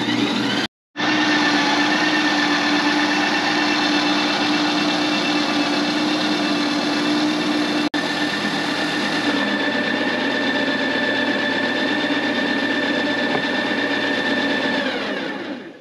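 Ninja Creami ice cream maker running: its motor whirs steadily as the spinning blade processes the frozen pint into ice cream, then winds down near the end as the cycle finishes.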